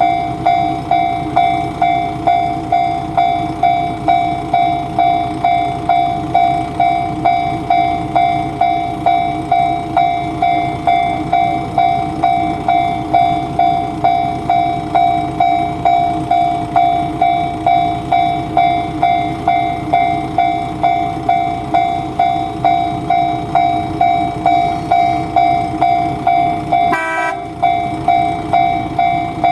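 Japanese railroad crossing warning bell ringing its steady "kan-kan" alarm, just under two strikes a second, over a low rumble. It breaks off briefly near the end and then goes on.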